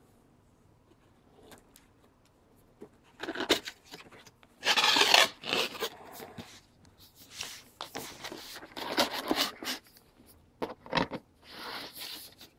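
Cardboard packaging being handled: a box flap pulled open and an inner box slid out, with scraping and rubbing of cardboard on cardboard. It starts about three seconds in, is loudest about five seconds in, and has a few sharp knocks near the end.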